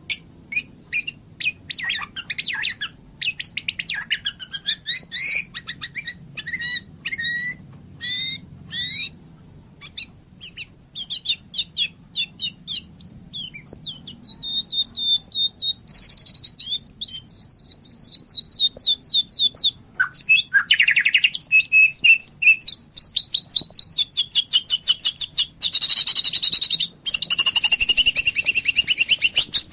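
White-rumped shama singing a varied song: sharp clicks and short whistled notes that slide in pitch, then from about halfway long runs of fast repeated notes, like rapid trills and chatter.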